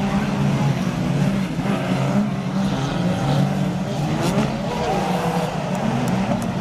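Several banger racing cars' engines running together, a steady drone whose revs rise and fall as the cars drive and jostle around the track.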